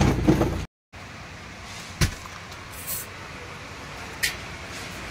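Street traffic background, broken by a sudden gap. A sharp click comes about two seconds in, a short high hiss near three seconds, and another click past four seconds.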